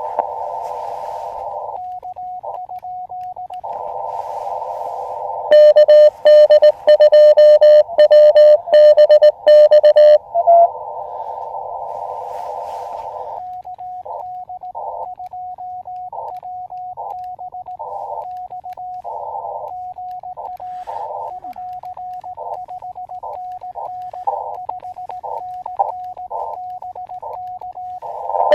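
Elecraft KX2 transceiver receiving Morse code in CW mode: a narrow band of receiver hiss with calling stations' signals keyed in it as short on-off tones. About five and a half seconds in, a much louder, slightly lower-pitched keyed tone runs for about five seconds: the sidetone of the operator's own sending.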